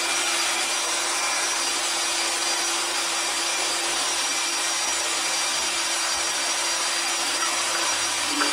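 Flex-shaft drain cleaning machine running steadily, a continuous grinding rasp with a steady hum, its spinning cable boring through hardened white cement lodged in the washbasin drain pipe.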